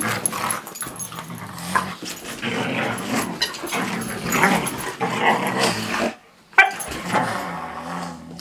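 Siberian huskies play-fighting, growling and grumbling at each other in rough play, with a short lull about six seconds in.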